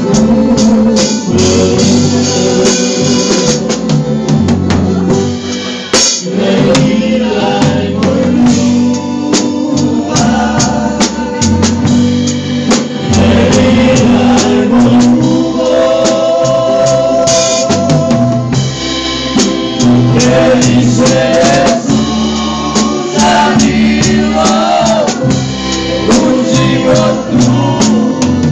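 Live tamburica band music played loudly, with a drum kit keeping the beat: sharp snare and cymbal hits over string instruments and bass, and singing.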